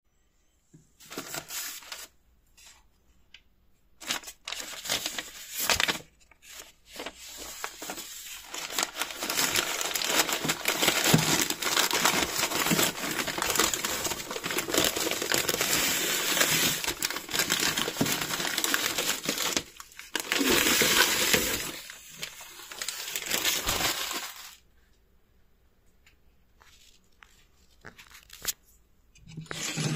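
Newspaper crinkling and crumpling as hands unwrap a parcel, in irregular bursts that stop about five seconds before the end.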